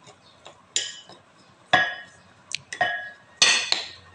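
A metal spoon clinking and scraping against a small clear container while it stirs cooking oil into cornstarch to make a thick paste. There are about five sharp clinks, roughly a second apart.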